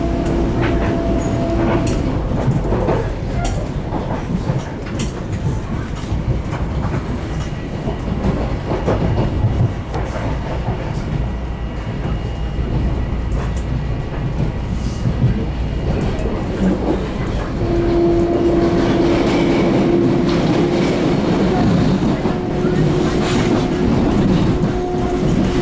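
Inside a moving Long Island Rail Road electric commuter train: a steady rumble of wheels on rail with scattered clicks over the track. A steady hum from the train stops about two seconds in and returns after about eighteen seconds.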